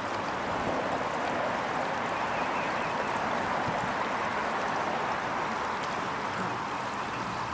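Steady rushing hiss of moving water, even in level, with no distinct splashes or knocks.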